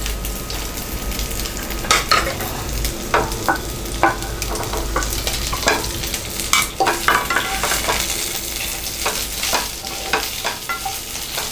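A wooden spatula knocking and scraping in a nonstick frying pan as steamed rice dumplings are dropped in from an idli plate and tossed through the tempering, with a steady light sizzle of oil in the pan, which is off the flame and cooking on its own heat.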